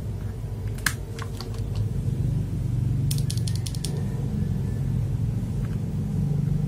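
Clicks from a mechanical keyboard with AKKO Silver switches: scattered single presses and a quick run of about six near the middle, over a steady low hum.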